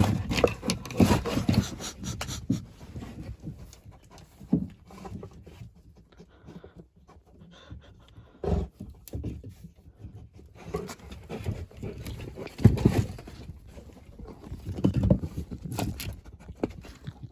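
A Moscow Watchdog panting in irregular spells, heaviest at the start and again about two thirds of the way through.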